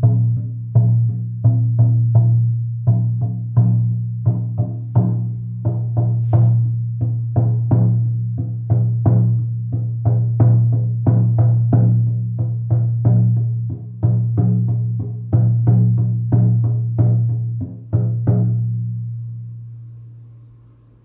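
Bison-hide hand drum struck with a padded beater in a steady beat of about two to three strokes a second. Each stroke rings on in a deep, sustained hum. The strokes stop near the end and the drum rings out and fades.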